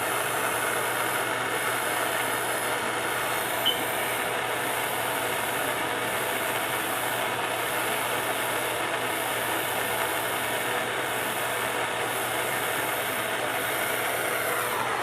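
Plumber's handheld gas torch burning with a steady hissing flame while heating a pipe joint for soldering. There is a brief faint tick about four seconds in.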